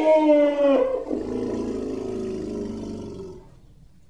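An elephant calling: a loud, pitched call that drops in pitch just under a second in, then turns into a lower, rougher call that trails off a little over three seconds in.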